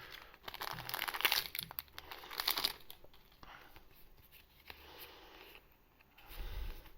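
A trading-card booster-pack wrapper being torn open and crinkled by hand: a crackling rustle in the first few seconds, then quieter handling, with a short low bump near the end.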